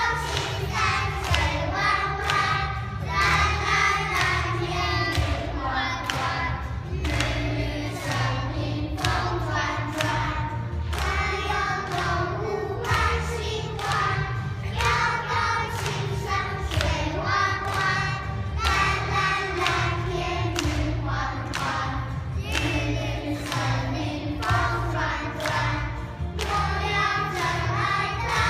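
A group of children singing together over a music track with a steady beat.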